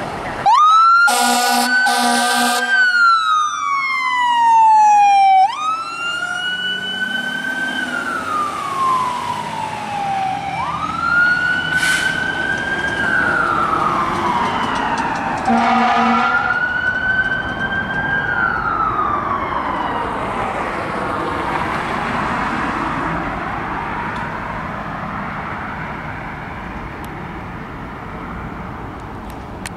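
Fire engine's siren wailing, rising and falling in long sweeps about every five seconds, with two horn blasts near the start and another about halfway. The siren slowly fades as the truck pulls away.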